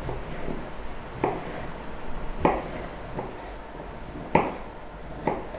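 Knife cutting a bell pepper into dice on a cutting board: a handful of separate knocks a second or more apart.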